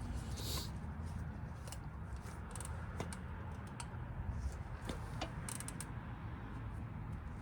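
Faint scattered clicks and light scrapes of hands handling a brake caliper slide pin while greasing it and putting it back in, over a steady low hum.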